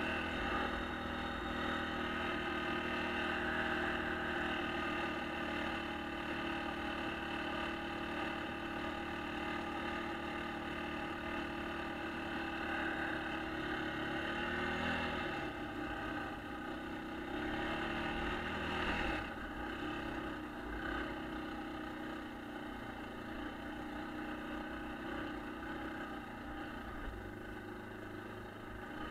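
A 1996 Yamaha Kodiak ATV's single-cylinder four-stroke engine running steadily while riding over snow. Past the halfway point the engine note steps down twice, and it runs lower and a little quieter after that.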